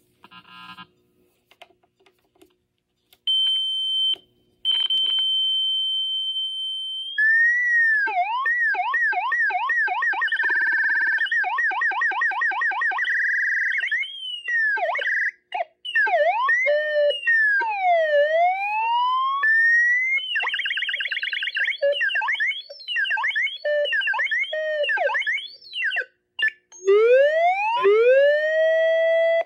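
Electronic tones from a Boss PH-3 Phase Shifter pedal through a small guitar amplifier, changing as its knobs are turned. After a few quiet clicks, a steady high tone starts about three seconds in. It then turns into fast warbles and siren-like sweeps up and down in pitch, and ends on a long rising glide.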